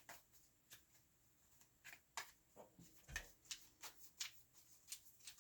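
Faint, irregular soft clicks and taps of tarot cards being handled and laid down on a table, with one duller thump about three seconds in.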